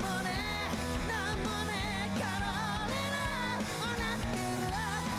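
An anime opening theme song: a singer's voice over pop-rock backing with bass and a steady beat.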